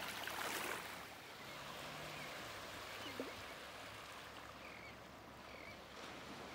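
Shallow water sloshing and lapping, with a brief splash in the first second and a short sharp squeak-like call about three seconds in.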